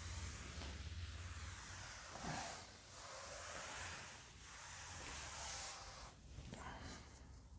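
Faint swishing of a cloth duster wiping chalk writing off a blackboard, a series of swipes about one a second.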